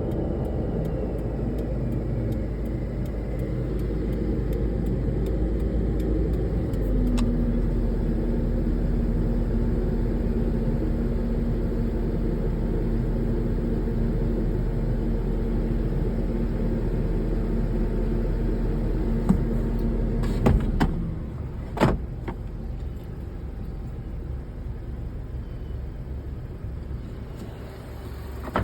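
1994 Subaru Vivio running with a steady drone, the grinding noise its owner is asking about. About seven seconds in a steady tone joins it. About twenty seconds in the running stops with a few sharp knocks, leaving a quieter background.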